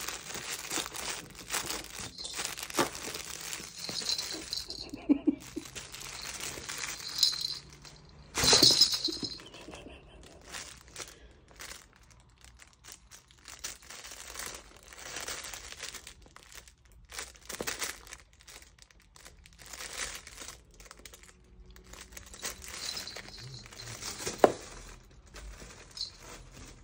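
Crinkly fabric cat toy rustling and crackling in irregular bursts as a cat bites, clutches and kicks at it, the loudest burst about eight seconds in and a sharp click near the end.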